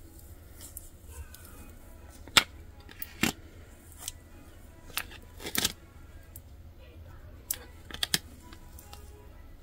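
Handling of a glass soap-dispenser bottle with a pump top: scattered sharp taps and clicks, about nine in all, the loudest about two and a half seconds and five and a half seconds in, as the vinyl stencil is pressed down on the glass and the bottle is turned, over a steady low hum.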